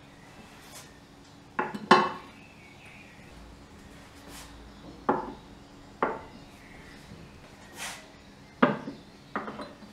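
A plate, a ceramic bowl and drinking glasses set down one after another on a wooden tabletop: about six short clunks and knocks, the first two close together.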